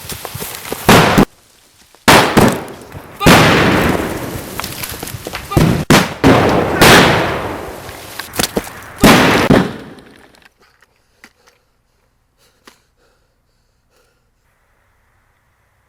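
A run of about eight loud bangs and blasts over roughly nine seconds, each sudden and trailing off in a noisy rumble. They stop about ten seconds in, leaving only a few faint clicks.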